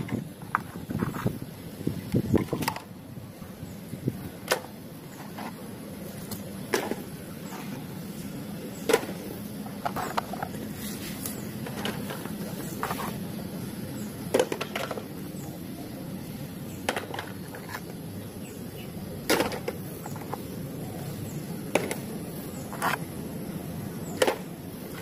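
Mud-coated hard plastic toys clacking as they are picked up one by one and dropped into a plastic basket: irregular sharp knocks every second or two, in a quick cluster at first, then spaced out.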